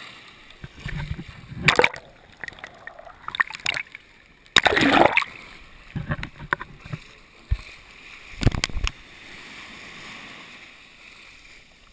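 Sea water splashing and sloshing against a hand-held action camera as it dips in and out of the surface, in irregular bursts, the loudest about five seconds in.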